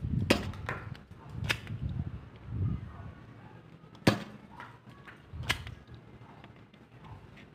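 Nerf Elite toy pistol being handled and fired: a handful of sharp plastic snaps and clicks, the loudest about four seconds in, with low handling rumble between them.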